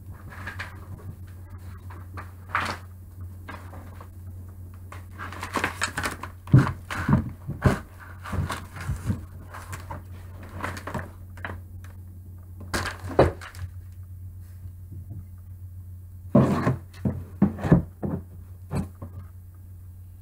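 Props being handled on a table: crumpled brown paper rustling and a cardboard box being moved, with a scattering of knocks and thumps as things are set down, over a steady low hum.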